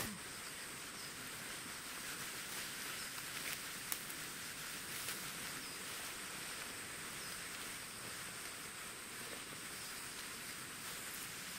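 Outdoor field ambience: a steady high-pitched insect buzz, with faint short chirps every couple of seconds.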